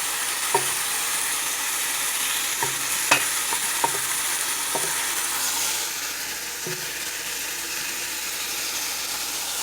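Curry chicken frying in a very hot pot, a steady sizzle, with a few sharp clicks of a utensil against the pot as it is stirred. The sizzle eases slightly about six seconds in.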